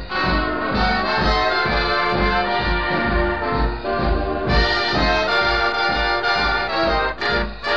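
Swing big band playing an instrumental passage: brass chords over a steady beat, in an old live recording with dull, cut-off treble. Near the end the band plays a few short, clipped chords.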